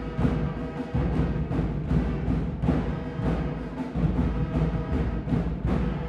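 A school band playing: brass and saxophones holding sustained chords over a steady drum beat.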